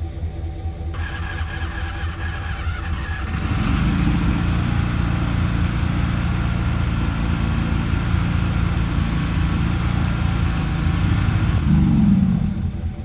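An engine runs up to a steady speed and holds it for several seconds, then drops back near the end, over a steady hiss.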